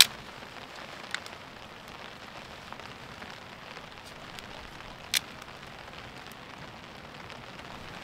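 Campfire of split wood burning, crackling over a steady hiss, with a few sharp pops: one at the start, one about a second in and a louder one about five seconds in.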